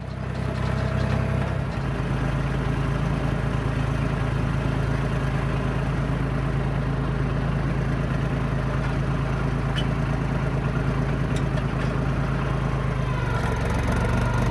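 John Deere crawler dozer's diesel engine running steadily, its note shifting a little about 13 seconds in.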